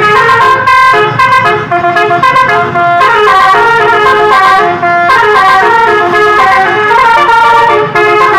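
Basuri telolet bus horn playing a melody: several blaring horn tones stepping from note to note, held and changing, with a few short breaks.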